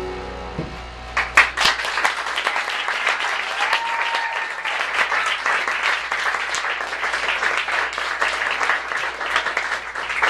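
A held musical chord dies away, then an audience starts applauding about a second in, clapping steadily.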